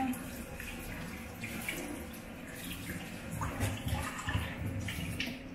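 Tap water running from a faucet-mounted filter into a stainless steel sink, splashing over a fish head as it is rinsed and turned by hand, with small knocks and splashes from the handling.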